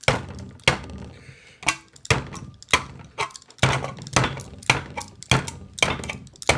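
Knife blade stabbed again and again into the lid of a steel food can to punch it open: about a dozen sharp thunks, roughly two a second.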